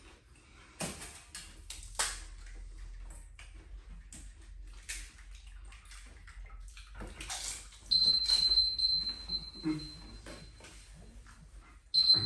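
Golgappas being eaten in a hurry: scattered crunches, clicks and wet slurps as the puffed puris are cracked and dipped in spiced water. About eight seconds in, a high-pitched beeping timer alarm goes off, signalling that time is up, and it sounds again near the end.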